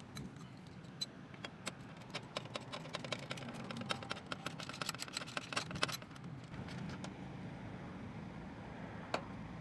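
Hand ratchet clicking in quick runs of light clicks as a bolt is driven in at the lower edge of a car fender, the clicks thinning out after about six seconds.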